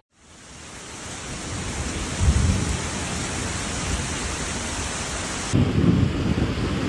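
Heavy rain in a severe thunderstorm, steady hiss, with a low rumble of thunder about two seconds in. About five and a half seconds in, the sound cuts abruptly to strong wind gusting on the microphone.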